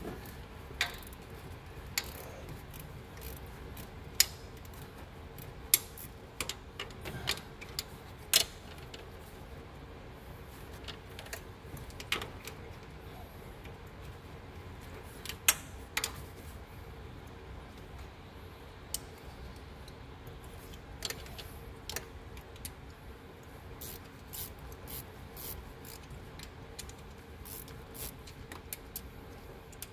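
Scattered sharp metallic clicks and clinks, a few much louder than the rest, of hand tools and parts on the open cylinder head of a Ram 1500's 4.7 L V8 as the valvetrain is worked on to replace the lifters. A faint steady hum sits beneath.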